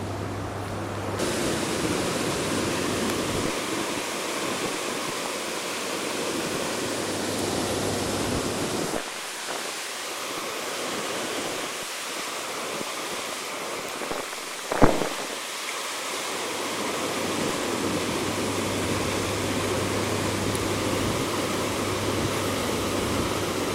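Steady rush of flowing river water, with one brief sharp click about two-thirds of the way through.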